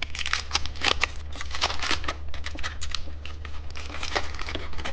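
Plastic candy wrapper crinkling and rustling as it is handled and opened, in many irregular short crackles.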